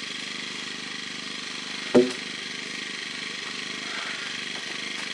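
An engine idling steadily, with one sharp, loud knock about two seconds in.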